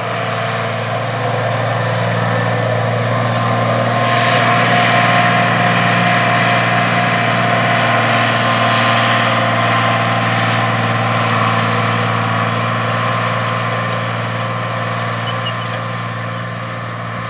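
A diesel tractor engine of an International Harvester tractor running steadily under field load, a deep even hum. It gets louder over the first few seconds, then slowly fades.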